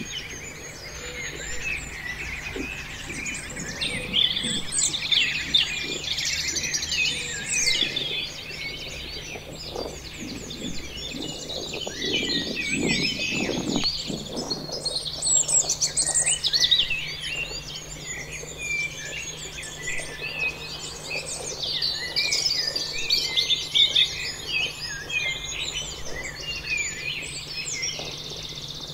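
A dense chorus of many birds chirping and singing at once, short calls and trills overlapping throughout, over a faint steady low hum.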